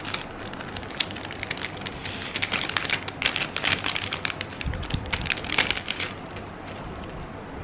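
Thin clear plastic sleeve crinkling and crackling as hands open it and take a round sticker out. The crackling is busiest in the middle and dies away about six seconds in.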